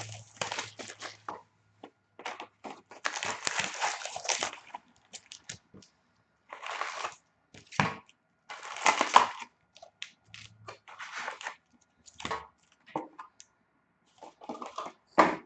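A sealed box of hockey cards being opened by hand: plastic shrink-wrap tearing and crinkling and cardboard rustling, in irregular bursts with a few sharp crackles.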